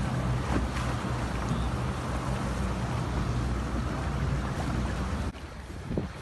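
RIB's outboard engines running under way, with wind and water rushing past; the sound drops abruptly to a quieter rush near the end.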